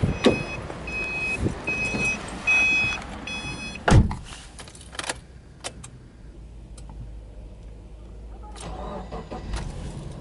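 Subaru Impreza 20S: a row of about five evenly spaced beeps from the car's warning chime with door clicks, then a loud door-closing thump about four seconds in. Near the end the 2.0-litre flat-four (boxer) engine cranks, fires and settles into a steady idle.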